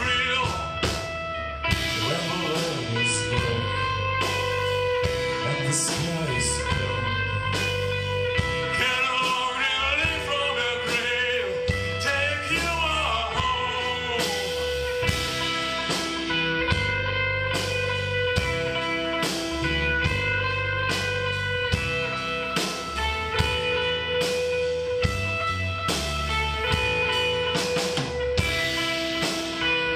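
Rock band playing: electric guitar and a drum kit keeping a steady beat, with a male voice singing at times.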